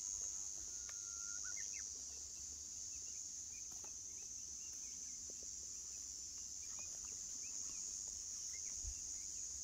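Insects shrilling in one steady high-pitched drone, with faint short bird chirps and whistles scattered through it.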